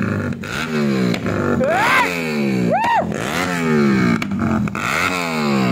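Motorcycle engine revved in repeated throttle blips, about once a second, its pitch jumping up and sliding back down each time. Two short swooping high calls sound over it about two and three seconds in.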